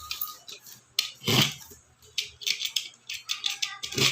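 Handling of a product box and its packaging: a run of sharp clicks and rustles, with a heavier knock about a second and a half in.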